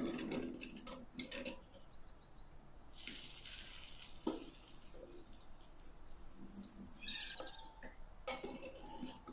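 A small metal spatula clinking and scraping against a miniature aluminium frying pan, with scattered light taps, and a brief soft hiss about three seconds in.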